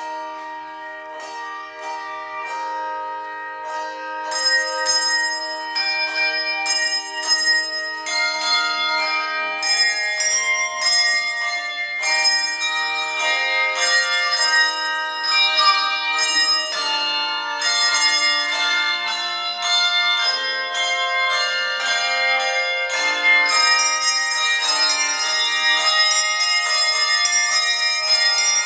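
Handbell choir playing a piece: tuned handbells ring on in overlapping chords and melody notes, beginning suddenly with a chord, with more bells joining about four seconds in. The bass bells are struck on the rim with mallets, a percussive technique that still leaves a ring.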